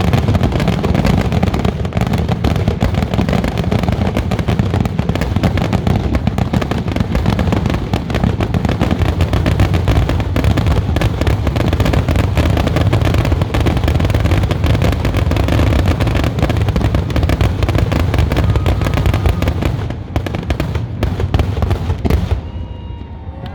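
Fireworks going off in a dense, continuous barrage of rapid bursts and booms, a grand finale. The barrage dies away about 22 seconds in.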